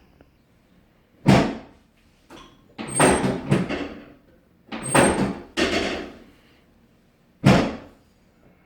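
Chiropractic treatment table knocking and rattling as the patient is positioned: a sharp thud about a second in, two longer clattering stretches with a brief high squeak in each, and another sharp thud near the end.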